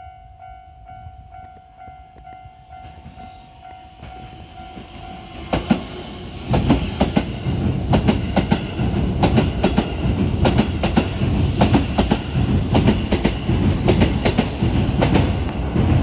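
Level-crossing warning bell ringing steadily. From about five seconds in, a Keihan 3000 series electric train runs over the crossing close by, its wheels clacking rapidly over the rail joints with a heavy rumble, while the bell keeps ringing underneath.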